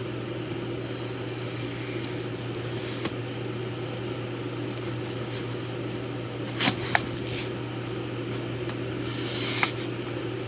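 Steady low hum of a fan or similar appliance, with a few sharp clicks and a brief rustle from a cardboard package being handled.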